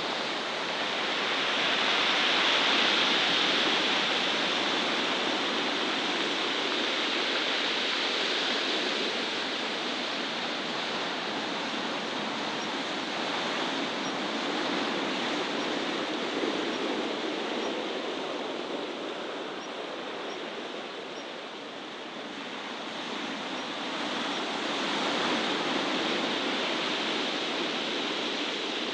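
Steady rushing outdoor noise that slowly swells and eases over several seconds, with no distinct events.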